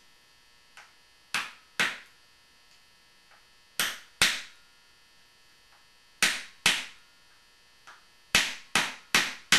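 Wooden mallet tapping the handle of a short starter to drive a patched ball into the muzzle of a muzzleloading pistol barrel: pairs of sharp knocks a couple of seconds apart, then a quicker string of taps near the end.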